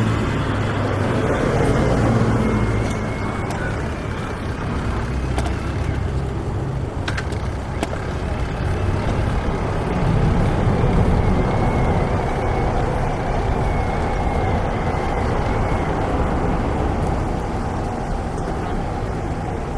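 Road traffic on a busy city street: cars and trucks passing in a continuous stream of engine and tyre noise that swells and eases.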